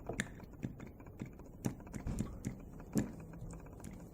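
Light, irregular metallic clicks and knocks from a small Cox .049 model diesel engine being worked by hand, its loose parts knocking: the sign of a lot of play in the engine.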